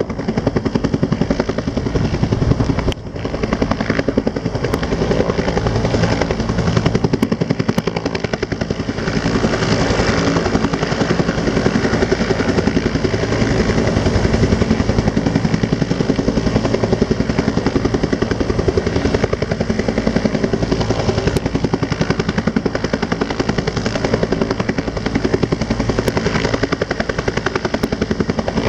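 A rescue helicopter running close by, loud, its rotor blades beating in a fast, steady chop. The sound dips briefly about three seconds in.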